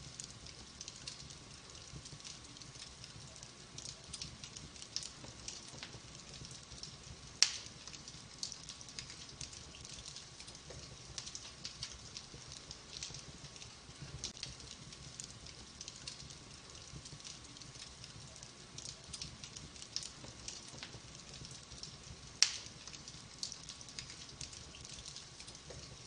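Wood fire crackling in a fireplace: a continuous run of small crackles and ticks, with two sharp, much louder pops about fifteen seconds apart.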